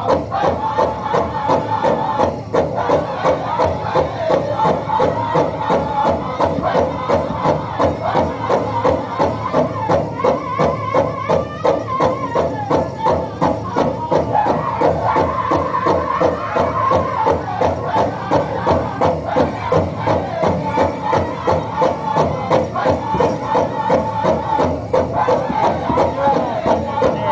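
Powwow drum group singing a prairie chicken dance song: a big drum beaten in a steady beat under high-pitched group singing, with crowd noise behind.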